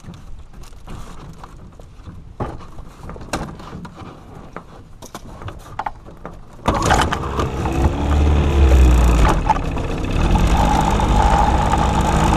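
Scattered knocks and clicks of gear being handled, then about two-thirds of the way in a boat motor starts abruptly and keeps running steadily.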